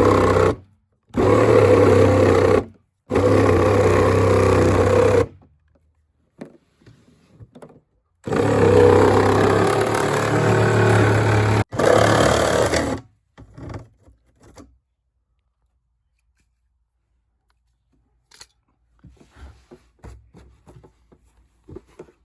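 Reciprocating saw cutting a circle out of a plastic cooler's wall. It runs in several bursts of a few seconds, stopping and restarting, and finishes about 13 s in. After that only faint clicks and handling remain.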